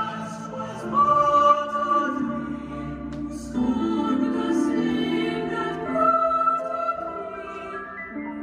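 Music with singing voices holding long notes that change step by step, in a choral or operatic style.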